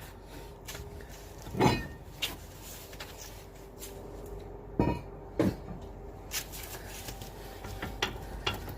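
Scattered clanks and knocks of metal tools and parts being handled, the loudest about a second and a half in and two more around five seconds in, over a faint steady hum.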